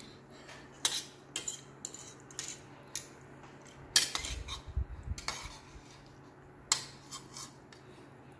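Metal fork and spoon clinking and scraping against a plastic plate while scooping up leftover noodles, in irregular separate knocks. The loudest comes about four seconds in, with a dull thump.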